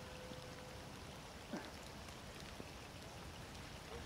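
Faint steady hiss of light rain, with a couple of faint ticks.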